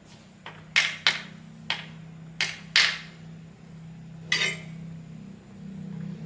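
Hammer blows: about seven sharp strikes at uneven intervals, over a steady low hum.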